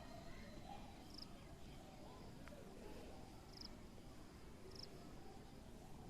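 Faint insect chirping: three short, high chirps a second or two apart over a low background hiss.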